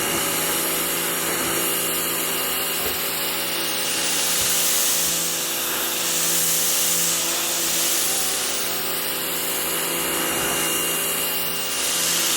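Harbor Freight Portland electric pressure washer running, its motor humming steadily while the water jet hisses, the hiss swelling and fading a few times as the spray moves over the surface.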